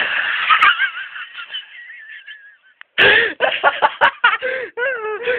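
People laughing hysterically: high, wavering, squealing laughter that fades out about two and a half seconds in, then breaks out again in short, rapid bursts.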